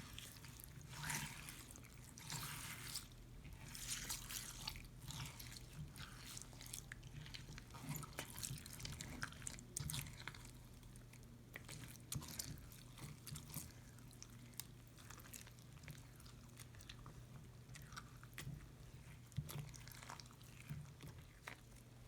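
Crunchy slime filled with seed beads and foam beads being squished and worked by hand: soft wet squishes with many small crackles and pops, busiest in the first few seconds.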